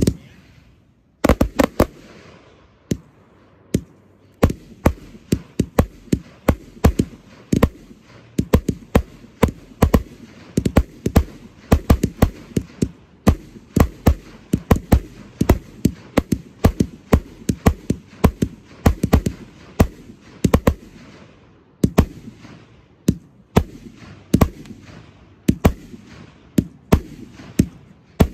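Aerial fireworks display: a rapid, irregular run of sharp bangs from bursting shells, several a second, beginning about a second in after a short lull.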